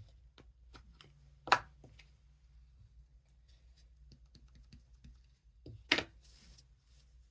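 Light taps and clicks of a small rubber stamp being inked on an ink pad and pressed onto cardstock, with two louder knocks, about a second and a half in and near six seconds, the second followed by a short rustle.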